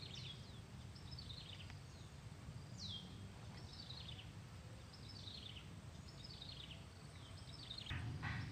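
Faint birdsong: a short phrase of high notes falling in pitch, repeated about once a second, over a steady low background rumble that grows louder near the end.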